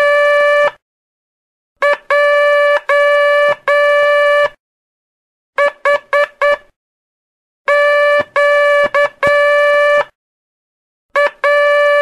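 Morse code tones keyed at one steady, buzzy pitch, sending the letters Q, J and H in turn with about a second's gap between letters. J is sent as dit-dah-dah-dah and H as four quick dits; a Q (dah-dah-dit-dah) ends at the start and another begins partway through, and a new J starts near the end.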